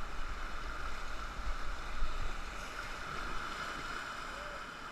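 Steady rush of river water through a whitewater rapid around an inflatable raft.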